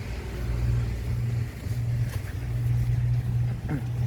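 Car driving: a steady low engine and road drone.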